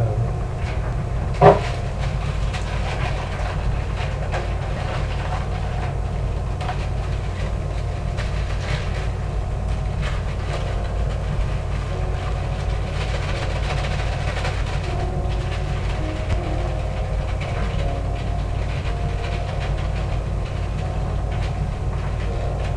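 A steady low rumble with light clinks and knocks as utensils and dishes are handled at a kitchen counter, and one sharp knock about a second and a half in.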